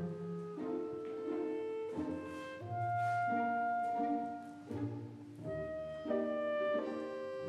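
Light instrumental background music: held melodic notes that step from one pitch to the next about once a second.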